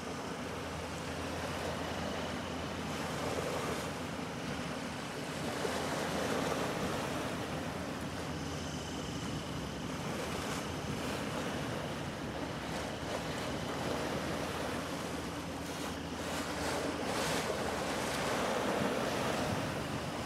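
Choppy river water washing and wind buffeting the microphone, rising and falling every few seconds, with a faint steady low drone underneath.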